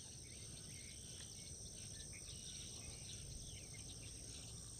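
Faint outdoor ambience: a steady high-pitched insect chorus, with a few faint bird chirps.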